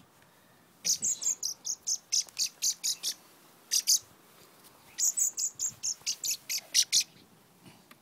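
A young wild bird cheeping in rapid runs of short, high chirps, about four or five a second, in three bursts with short pauses between them: a fledgling's begging calls as it is offered food by hand.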